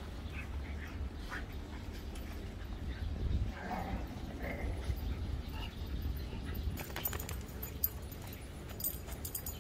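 Dogs in a playgroup giving a few brief whines a few seconds in, over a steady low rumble, with a run of light sharp clicks near the end.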